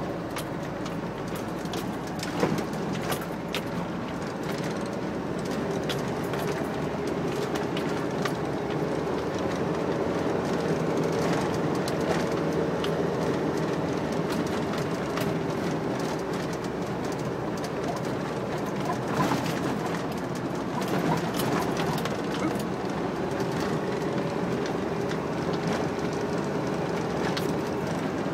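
A vehicle driving on a gravel driveway, heard from inside the cab: a steady engine and tyre rumble with scattered clicks of gravel under the tyres, and a sharper knock about two and a half seconds in.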